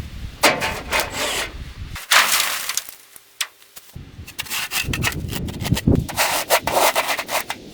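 Repeated rough scraping strokes on a hard surface, in uneven bursts with a short pause about three seconds in.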